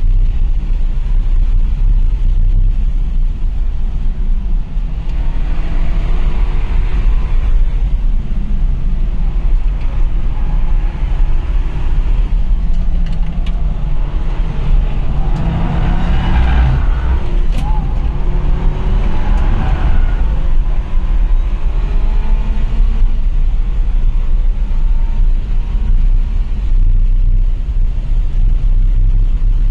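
Car engine at speed, heard from inside the cabin over heavy road and wind rumble. Its note climbs in pitch twice, around a fifth and just past halfway through.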